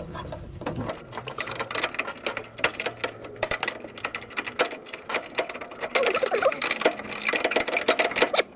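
Rapid, irregular clicking and rattling of small metal parts handled close up, as a pin and spring are worked into a gas pedal's linkage.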